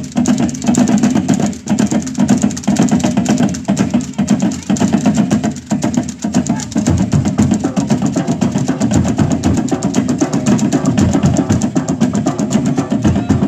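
Cook Islands drum ensemble playing a fast, driving rhythm: rapid wooden strokes on slit log drums over a strong, deep drumming.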